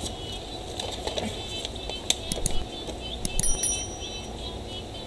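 Subscribe-button animation sound effect: a few sharp clicks about two seconds in, then a short, high bell ding. Underneath there is a steady low hum and faint, repeated high chirps.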